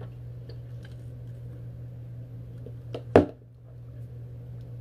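Faint sipping and small clicks from an iced coffee drunk through a straw from a clear plastic cup. About three seconds in comes one sharp knock, the cup being set down on the table. A steady low hum runs underneath.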